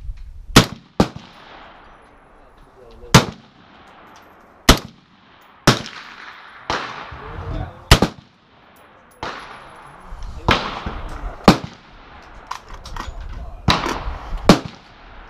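Rifle shots at a shooting range: about ten loud, sharp cracks at uneven intervals of roughly half a second to two and a half seconds, each ringing out in a short fading echo, with a few fainter shots between them.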